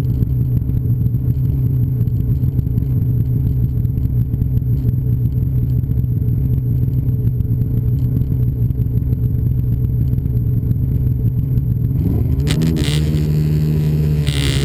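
Snowmobile engine running at a steady speed, then revving up with a rising pitch about twelve seconds in. A few short clattering noises come near the end.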